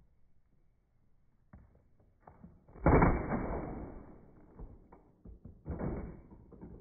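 A heavy bag of potatoes hits a MetroMax plastic shelf after an 18-foot drop: one loud, dull thud about three seconds in that dies away over about a second, then softer thumps near the end as the bag bounces on the shelf. The sound is slowed down along with the slow-motion picture, so it is deep and drawn out.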